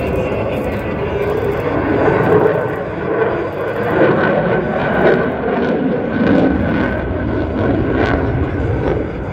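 An airplane flying overhead, its engine noise a continuous roar that swells slightly a few times.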